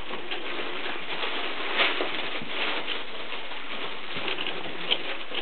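Five-week-old Border collie puppies at play: paws scrabbling and patting on the floor, with small puppy vocal sounds. Two brief louder sounds come, about two seconds in and near the end.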